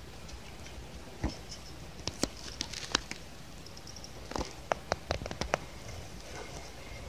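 Cats' paws and claws tapping on a wooden floor: scattered, irregular light clicks, busiest between about two and six seconds in.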